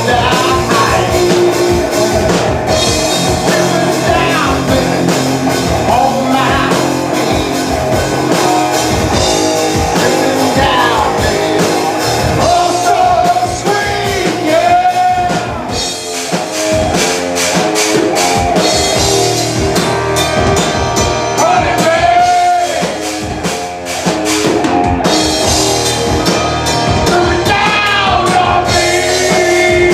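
Live rock band playing loud: singing over electric guitar, bass and a drum kit.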